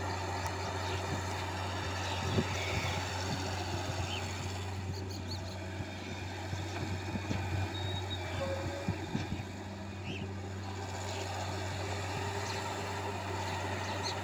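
Wheeled excavator's diesel engine running steadily as it digs sand and swings to load a truck, with a few short knocks about two seconds in and again a little past the middle.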